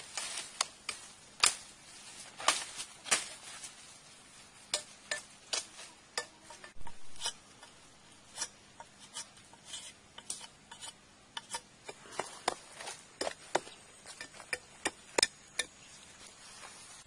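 A knife blade cutting and whittling a wooden stick by hand: a string of sharp, irregular cuts and knocks, one or two a second.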